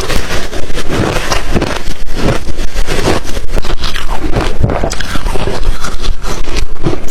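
Close-up crunching of ice being bitten and chewed: a loud, dense run of cracks and crackles without a break.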